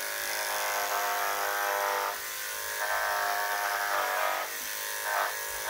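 Corded electric dog grooming clippers running while shaving down a dog's coat: a steady buzzing whine whose tone shifts a few times as the blade moves through the hair.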